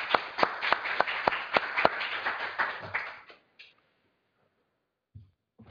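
Audience applauding, with separate claps standing out. The applause dies away about three seconds in.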